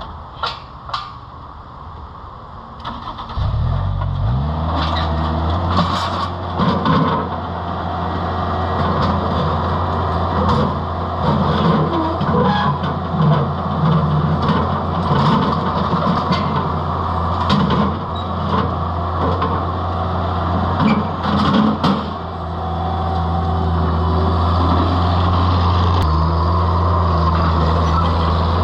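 Vermeer 925 mini skid steer's engine cranking and catching about three seconds in, then running steadily, with repeated metal clanks and knocks from the steel attachments being handled and nested together through the middle stretch.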